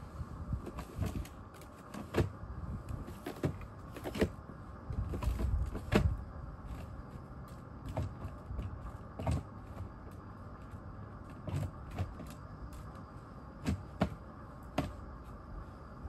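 Gloved hands packing and patting snow around and onto a small plastic drawer unit: irregular crunches and knocks, some of them against the plastic, over a faint steady hum.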